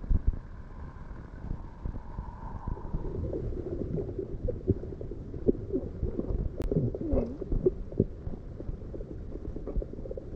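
Muffled water noise picked up by a camera at or below the sea surface: a steady low rumble with short wavering gurgles through the middle.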